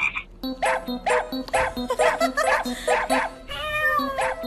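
Background music with a steady, bouncy beat. Near the end a husky gives one drawn-out call that falls in pitch.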